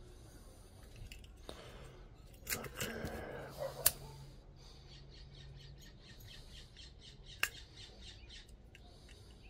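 A disposable lighter being struck, with a short run of scrapes and clicks and a sharp click just before four seconds in as it lights. A single sharp click follows later, near the end.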